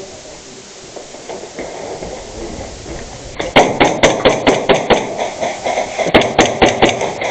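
Airsoft gun firing a rapid string of sharp shots, about six a second, starting about three and a half seconds in and running on in two strings.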